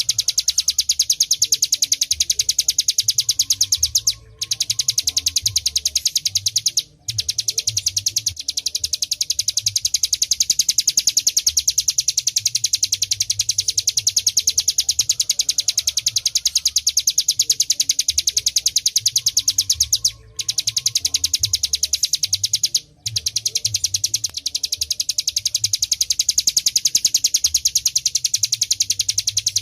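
Ciblek gunung, a prinia, singing a fast, unbroken run of high, even chipping notes, broken by four short pauses.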